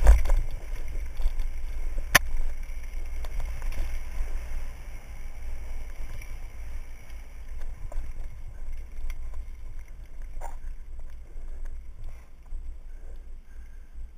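Wind buffeting a helmet camera's microphone while a mountain bike rattles down a dirt trail, with sharp knocks as the bike hits bumps at the start and about two seconds in. It gets quieter as the pace eases towards the end.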